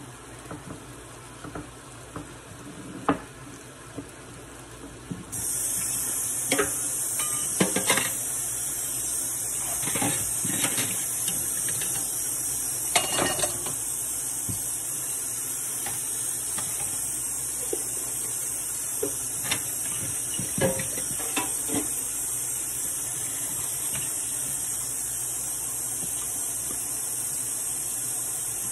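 Chicken and pepper fajitas sizzling in a frying pan, with clinks and scrapes of a utensil against the pan and dishes. The sizzling gets much louder about five seconds in.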